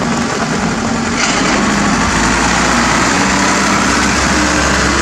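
Diesel engine of a Mitsubishi dump truck running steadily. About two seconds in its low note grows fuller and a little louder.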